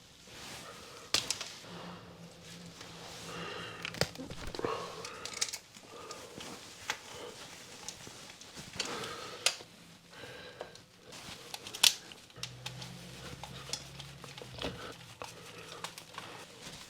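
Solid-core electrical cables being bent and pushed into a shallow back box by hand: scattered clicks, knocks and crinkling as the stiff wires and their insulation rub and tap against the box.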